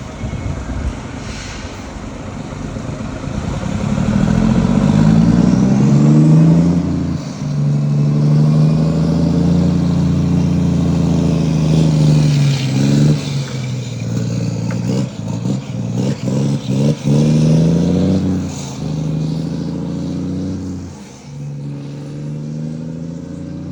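Scania truck's diesel engine running through a fully open exhaust with dual tips, revving up and dropping back several times, with a few quick breaks in the sound around the middle.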